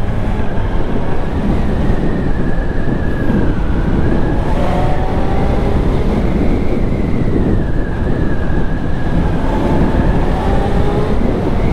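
Wind rushing over the microphone of a Honda CB1000R ridden at road speed, with the bike's inline-four engine running underneath on its stock exhaust and its note wavering a little with the throttle.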